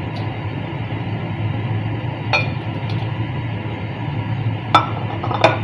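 Water boiling in a glass cooking pot while wood ear mushrooms are stirred with a spatula. The spatula clinks against the glass once about two seconds in and twice near the end.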